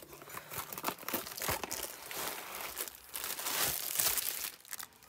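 Clear plastic wrapping crinkling and rustling as a rolled diamond painting canvas is handled, loudest near the end.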